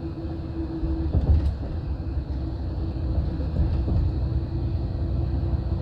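Cabin noise inside a Greyhound coach running on a freeway: a steady low engine and road rumble with a constant droning hum.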